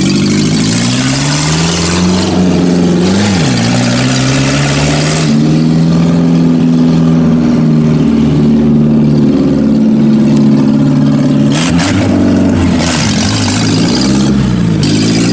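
1990 Geo Tracker's 1.6-litre four-cylinder engine pulling the car along: the revs climb, fall away sharply about three seconds in as a gear is changed, hold steady, then dip and pick up again near the end.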